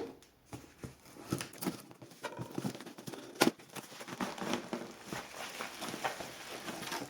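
A parcel being opened by hand: irregular rustling and crinkling of packaging with scattered taps and small knocks.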